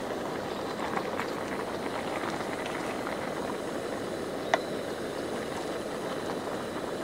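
Ramen broth boiling steadily in a stainless steel mess tin on a camp stove. A wooden spoon stirring the noodles adds a few light clicks, one sharper about four and a half seconds in.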